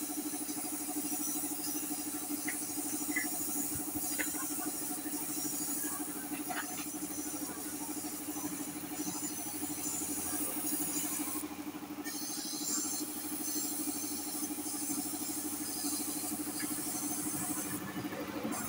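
Steady air hiss of a gravity-feed paint spray gun spraying, over a steady mechanical hum. The hiss drops out briefly about eleven and a half seconds in and again near the end.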